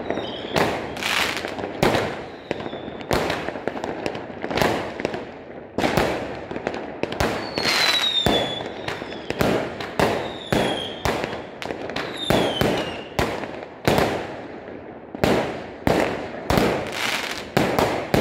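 Aerial fireworks going off in an uneven string of sharp bangs, one every half-second to second, with short high whistles that fall in pitch a few times among them.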